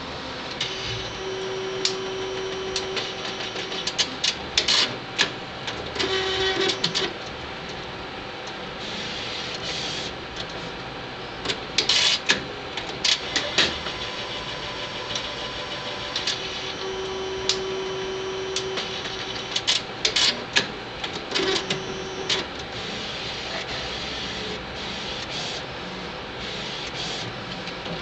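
A printer running through a print job. A steady mechanical whirr is broken by bursts of rapid clicking and short humming tones, and the cycle repeats about every fifteen seconds as the paper feeds out.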